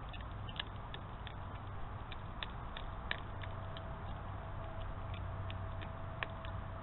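Red fox chewing fish scraps: irregular sharp clicks and crunches, over a steady low hum. A faint steady tone joins about halfway through.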